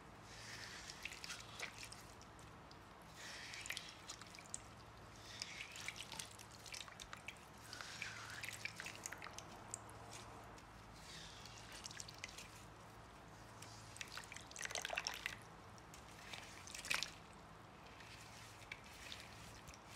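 Water-soaked floral foam squeezed and crumbled by hand: a series of short wet crunching and squishing bursts every couple of seconds, with water dripping from it. The two loudest crunches come about three-quarters of the way through.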